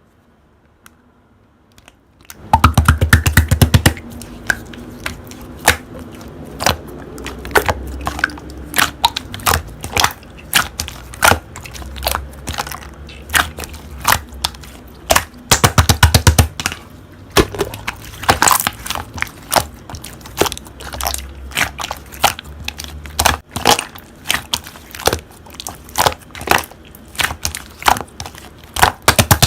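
Red clear slime being handled, squeezed and poked, making a dense run of sticky clicks and little air-bubble pops that starts about two seconds in, with a couple of quick rattling bursts of popping.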